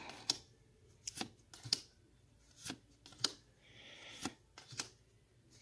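Pokémon trading cards being flipped through by hand, each card slid off the stack and moved to the other side with a soft snap of card stock. About a dozen faint clicks and slides come at uneven spacing, roughly one every half second.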